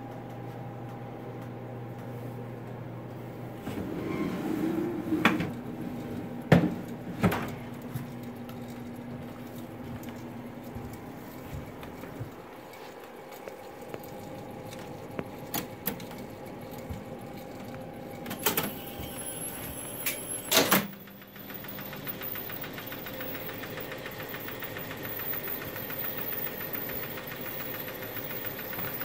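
Clunks and clicks from a 1970 Wurlitzer Statesman jukebox cabinet being handled and opened up, over a steady hum: a handful of sharp knocks about a quarter of the way in, and two more about two-thirds through.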